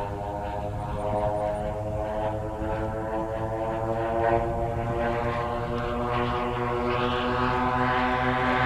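The two DLE 111cc gasoline engines of a giant-scale radio-control F7F-3 Tigercat, turning three-bladed props, drone steadily in flight. The sound grows louder toward the end.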